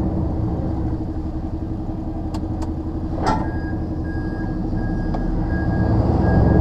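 Lorry diesel engine running steadily in the cab, getting louder near the end. A couple of clicks and a knock come about halfway through, then a repeating high beep starts.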